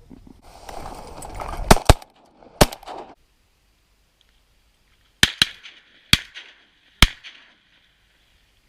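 Several shotguns firing at ducks in two quick volleys: three shots close together, then after a pause of about two seconds, four more.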